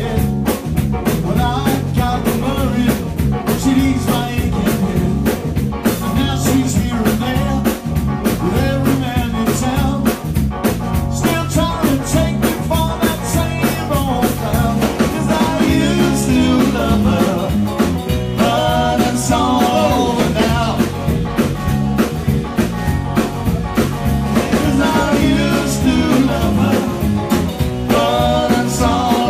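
Live rock band playing with electric guitars and a drum kit keeping a steady beat. A man sings in stretches through the middle and near the end.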